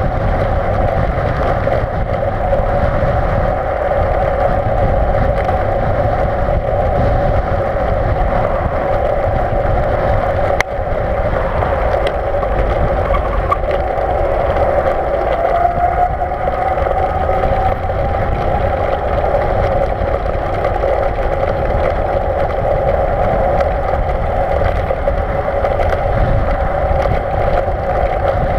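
Electric bike motor whining steadily under way, with wind and road rumble on the microphone; the whine rises a little in pitch about halfway through.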